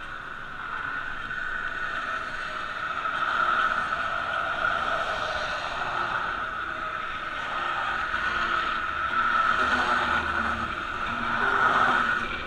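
Steady hum of road traffic and riding noise while cycling beside a busy road, swelling louder a few times as cars pass alongside.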